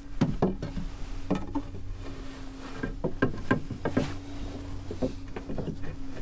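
Irregular wooden knocks and clunks as a timber sister piece is manoeuvred and tapped into place against the frames in a wooden boat's bilge, over a steady low hum.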